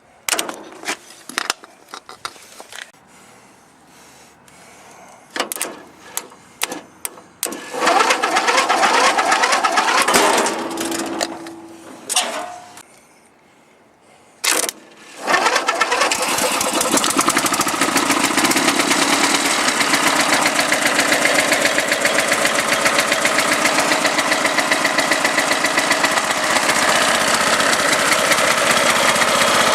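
A series of clicks and clatters, then a Huskee riding lawn mower's small engine, jump-started from a separate battery, starts about seven seconds in and runs for a few seconds before stopping. It is started again about fifteen seconds in and keeps running steadily.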